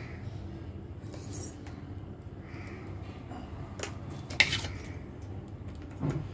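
Kitchen utensils being handled: a few light clinks and knocks, the loudest a sharp clink about four and a half seconds in, over a steady low background hum.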